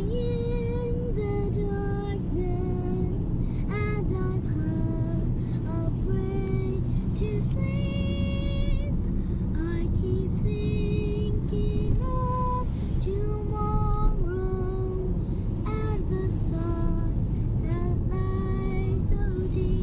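A high voice singing a slow melody of held, wavering notes, over the steady low rumble of a car driving, heard inside the cabin.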